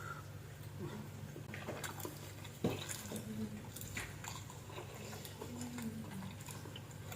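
Close-up chewing and mouth sounds of a person eating: scattered small smacks and clicks over a steady low hum.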